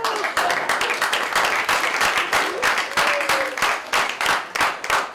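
Small audience applauding after a punchline, with a few voices calling out over the clapping; the clapping thins out near the end.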